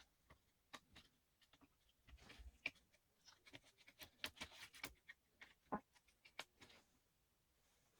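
Faint, scattered clicks, taps and short scrapes of hands working on a laptop's small plastic and metal parts during disassembly.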